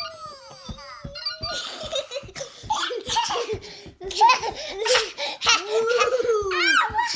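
Young children laughing hard in repeated bursts, with a quick high squeal near the end. A long held note comes before the laughter starts, about a second and a half in.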